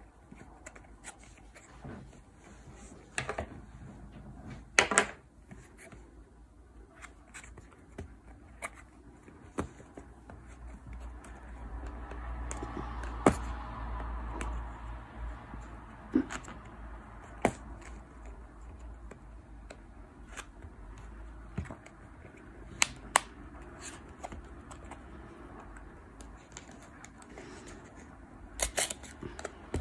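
A small printed cardboard box being handled and turned over, with scattered light clicks and taps and some scraping of cardboard; a few sharper clicks stand out near the start, in the middle and near the end.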